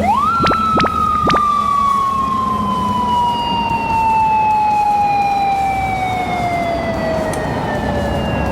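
Japanese police motorcycle siren winding up sharply to a high pitch and then slowly falling in one long wail. Three sharp clicks sound in the first second and a half.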